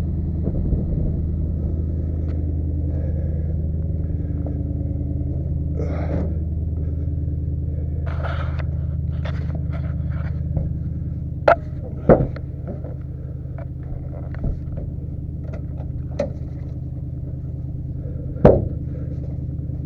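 Pickup truck engine running steadily at an even pitch, with a few sharp knocks and clanks over it, the loudest near the middle and near the end.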